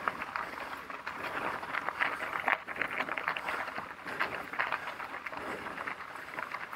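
Mountain bike tyres rolling over a gravel trail covered in dry fallen leaves: a continuous crunching crackle made of many small irregular clicks and rattles.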